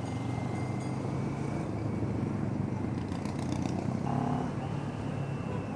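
CFMOTO 400NK motorcycle's parallel-twin engine running steadily while cruising slowly in city traffic, with road and wind noise.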